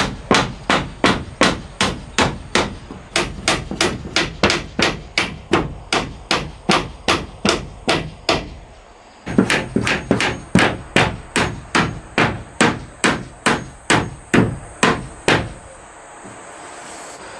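Steady hammer blows nailing vertical wooden wall planks to the hut's frame, about three sharp strikes a second. The hammering breaks off briefly about nine seconds in, resumes, then stops near the end.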